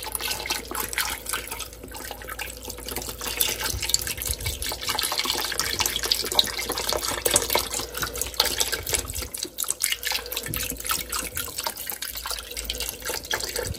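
Chicken stock pouring from a carton in a steady stream into a pot of raw beef, splashing onto the meat and into the broth pooling around it.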